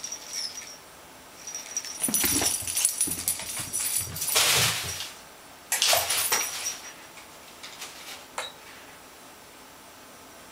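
Small jingle bell on a cardboard cat toy jingling and rattling as the cat pounces on it and the toy is tugged. There is a long burst about two seconds in, then a shorter one about six seconds in.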